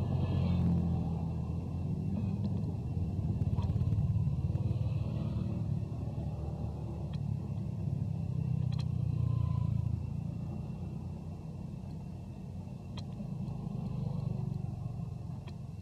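Motorbikes and other road traffic passing close by: a steady low rumble that swells and fades as each vehicle goes past, with a few faint clicks.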